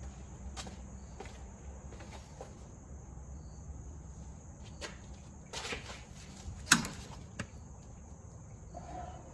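Scattered metallic clicks and knocks of hand tools and parts during work under a car to drop the fuel tank, with one sharp knock about two-thirds of the way in, over a steady high hiss and low hum.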